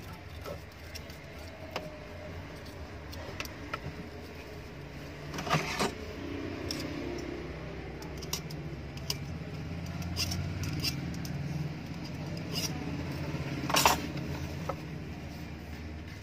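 Enamelled copper winding wire being worked by hand into the slots of a motor stator: scattered light clicks and rustles of wire against the steel core, with two louder knocks about five and a half seconds in and near the end, over a steady low background rumble.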